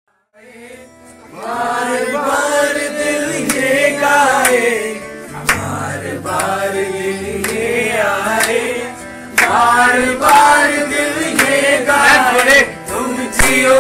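Group of voices singing a song, men's voices among them, over steady low accompanying notes; it fades in after a brief silence at the start.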